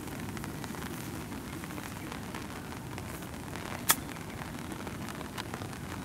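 A golf ball struck once with a 56° wedge on a short chip shot: a single sharp click about four seconds in, over steady background noise.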